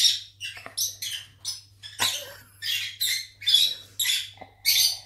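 Pet parrots calling over and over, a run of short, shrill, high-pitched chirps and squawks about two or three a second.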